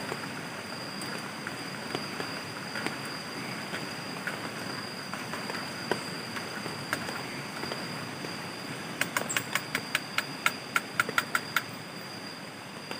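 Metal spoon stirring a drink in an aluminium mess tin, with scattered small clinks, then about two-thirds of the way in a quick run of sharp taps, about five a second, as the spoon is knocked against the tin. Under it a steady hiss and a constant high insect drone.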